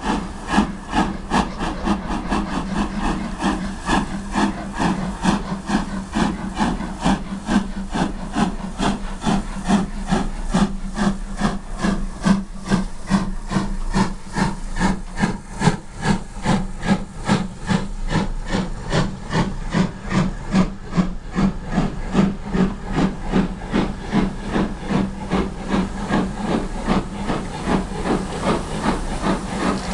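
Midland Railway 4F 0-6-0 steam locomotive 43924 pulling away from a station with a train of coaches, its chimney exhaust beating in a steady, regular rhythm under load.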